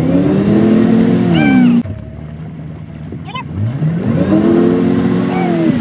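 Motorboat engine revving up, holding, and dropping back, twice. The first rev breaks off abruptly.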